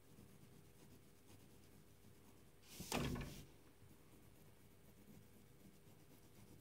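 Faint scratching of a pen colouring on paper, with one short, louder sliding scrape about three seconds in.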